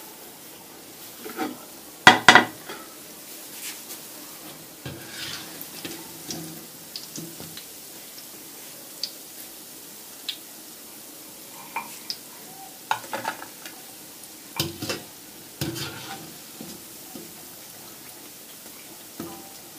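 Pieces of leftover roti frying in oil in a steel pan, with a low steady sizzle, while a wire-mesh skimmer scrapes and clinks against the pan as the fried pieces are lifted out. The loudest clatter comes about two seconds in, with another run of clinks in the second half.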